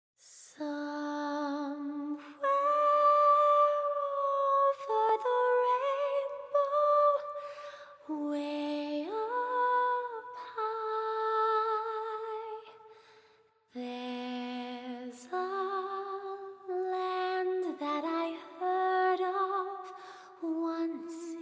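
Slow background music: a single melody of long held notes that glide from one pitch to the next, breaking off briefly just past halfway.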